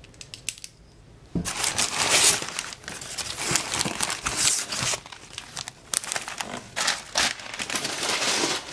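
White packing paper crinkling and crumpling as a paper-wrapped bundle is pulled from a cardboard shipping box. It starts about a second and a half in, after a few light clicks, and goes on in dense crackles.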